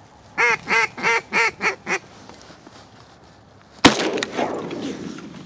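A run of six loud duck quacks, dropping slightly in pitch, then a single shotgun shot about four seconds in whose report rolls away for over a second.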